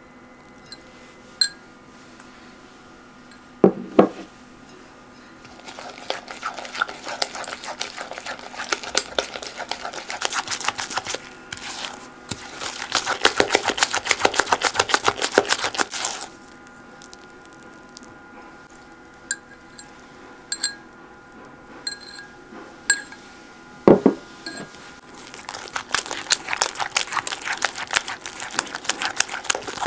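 A silicone spatula mixing creamed butter and sugar with beaten egg in a glass bowl: quick, wet scraping and squishing strokes in two long bouts. Two knocks of glass sound, one about four seconds in and one near the end of the first third of the last part, as a small glass bowl is set down.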